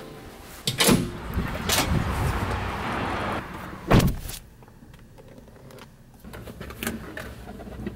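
Doors opening and closing: a couple of sharp clicks and knocks, then a car door shut with a loud thud about four seconds in, after which the car cabin goes quieter.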